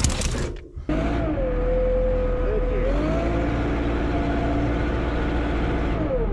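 A short loud clatter, then about a second in a backhoe loader's engine runs steadily with a whine that rises, holds, dips and rises again in pitch, falling away near the end as the machine is tested.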